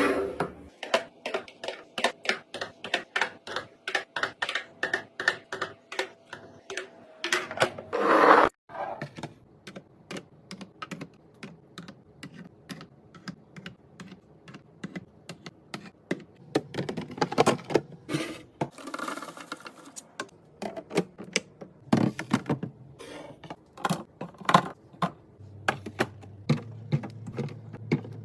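Quick series of light clicks and taps as packaged items are handled and set into place while restocking a fridge. There is a louder rustle and a sudden break about eight seconds in.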